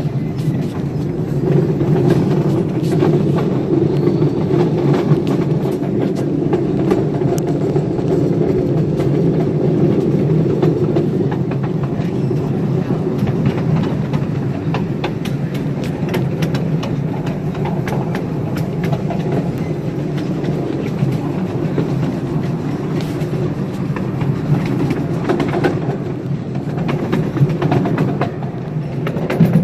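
Ridable live-steam railroad train rolling along the track: a steady rumble with many scattered clicks from the wheels on the rails.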